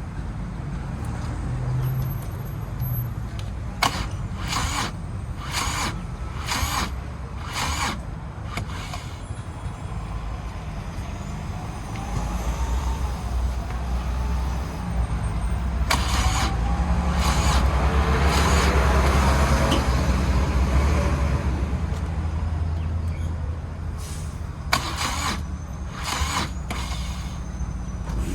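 Street traffic rumble with a vehicle passing, loudest about two-thirds of the way through. Three groups of sharp clicks, spaced roughly a second apart, come near the start, in the middle and near the end.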